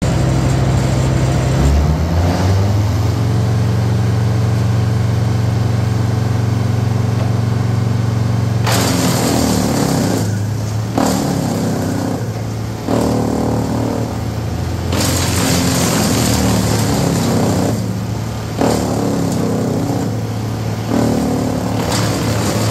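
Först ST6 wood chipper running with its engine at speed. From about nine seconds in, branches are fed in batches, about six times. Each batch brings a loud rush of chipping noise over the engine, and the engine note dips under the load.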